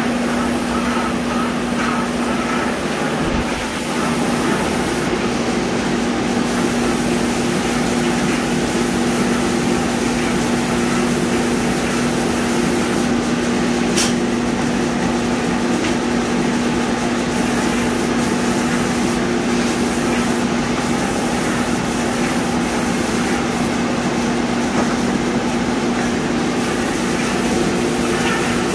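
Airless paint sprayer in use: a steady hiss from the spray gun as it atomises white 2K coating, thinning out briefly a few times, over a constant machine hum.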